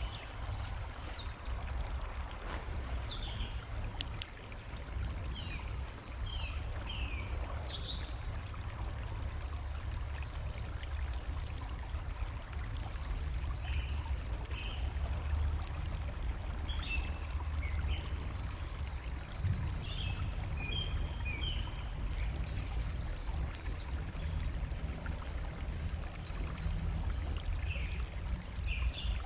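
Small songbirds chirping in many short calls over a steady low rumble and hiss of flowing water. A single sharp click about four seconds in.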